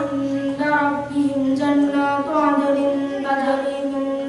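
A boy reciting the Qur'an in a melodic chant, in long held notes that step up and down in pitch, with short breaks between phrases.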